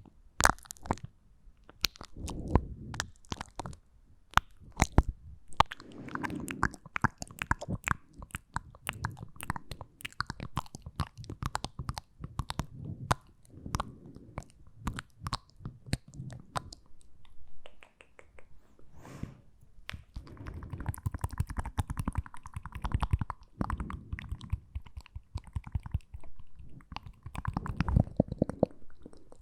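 ASMR mouth sounds: a dense, irregular run of sharp tongue and lip clicks and smacks, close to the microphone.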